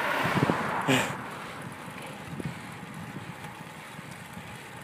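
Wind rushing over the microphone of a handheld camera on a moving bicycle, loudest for about the first second, then a steady, quieter rush.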